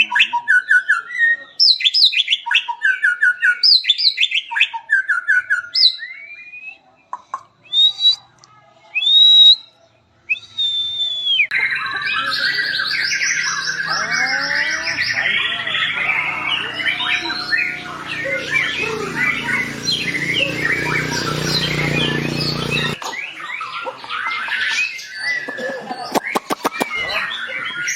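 White-rumped shama (murai batu) singing: repeated short whistled phrases, a few separate clear whistles, then a long unbroken run of varied song lasting about ten seconds that stops abruptly.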